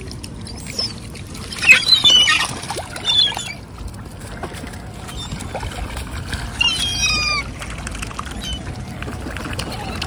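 Gulls squawking in short harsh calls: a burst about two seconds in, another about a second later, and a quick run of several calls about seven seconds in.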